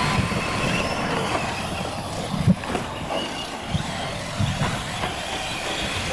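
Radio-controlled trucks racing over dirt: a faint motor whine over a steady rushing noise, with a few short thumps, the loudest about two and a half seconds in.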